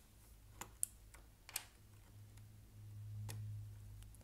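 A few isolated sharp clicks from a mechanical keyboard's key switches and keycaps being handled, with a low hum swelling in the second half.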